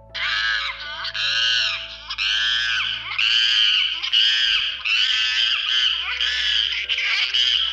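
Monkeys calling: a run of about eight loud, high-pitched calls, each under a second long, rising and then falling in pitch, following one after another almost without a break.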